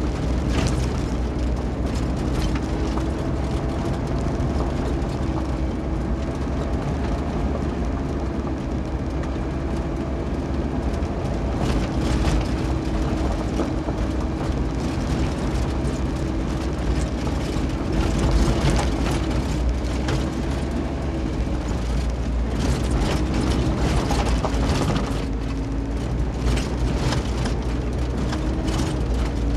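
Cabin noise of a 2020 Kia 4x4 driving on a rough dirt and gravel road: steady low rumble of tyres on the track, an engine hum that drifts up and down a little, and scattered clicks and rattles from stones and the body.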